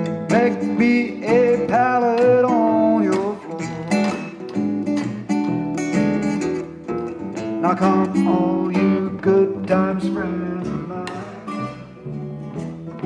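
Live acoustic music: a steel-string acoustic guitar picked and strummed over an upright double bass, with a bending melody line above them in the first few seconds.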